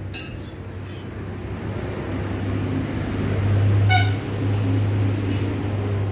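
Metal tools clinking and ringing five times, once sharply about four seconds in, over a steady low hum that swells around the same moment.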